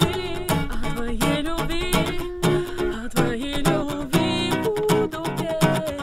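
Acoustic guitar strummed in a steady rhythm, with a woman singing long, wavering held notes over it.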